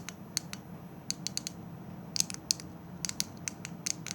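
Fidget cube's push buttons being pressed, giving sharp clicks in quick, irregular runs.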